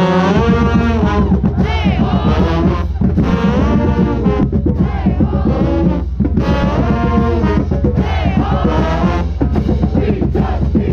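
Loud music with singing voices in phrases a second or two long, over a steady deep bass.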